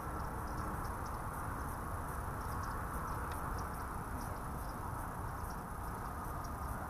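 Steady rushing background noise with faint, irregular high ticks scattered through it.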